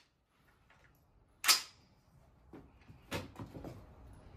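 AR-15 rifle being handled and readied to fire: one sharp metallic clack about one and a half seconds in, then a few softer knocks and rattles as the rifle is brought up to the shoulder.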